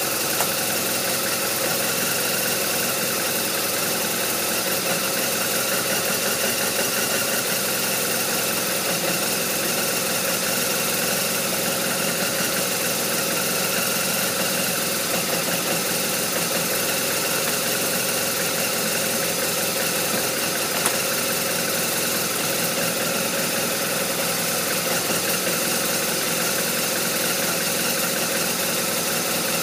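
BMW R1200RT's boxer-twin engine idling steadily at a rough idle.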